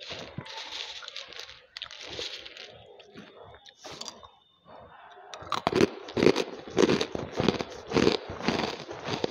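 Banslochan (tabasheer, the hard crystalline silica from bamboo) being crunched between the teeth close to a headset microphone. Softer crackling chews are followed, about five and a half seconds in, by loud brittle crunches at about three a second.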